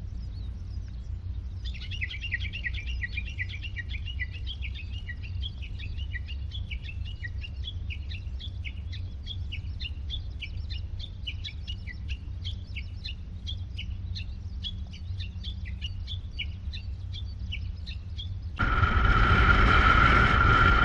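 A bird calling in a rapid run of short, falling chirps, several a second, over a steady low rumble. Music comes in suddenly near the end.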